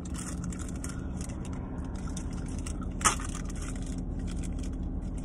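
Eating a wrapped breakfast sandwich up close: the paper wrapper crinkling and rustling in many short bursts, with chewing, over a steady low hum. One sharp click about three seconds in is the loudest sound.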